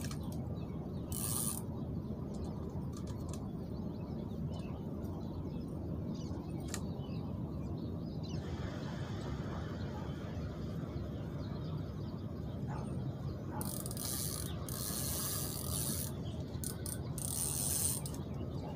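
Fishing reel being cranked, its gears ratcheting, over a steady low rumble. Louder spells of the whirring come about a second in and again near the end.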